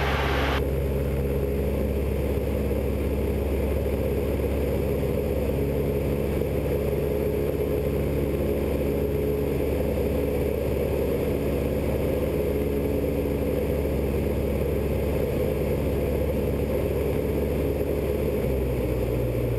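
Robin DR400 light aircraft's piston engine and propeller droning steadily in flight, heard inside the cockpit. The low note shifts slightly near the end.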